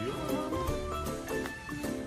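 Background music with a steady beat and a melody of short notes.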